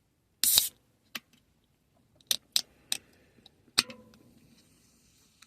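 A drink can opened by its ring-pull with a short, sharp crack and hiss, followed by several light metallic clicks and taps, one with a brief ring, then a faint fizz.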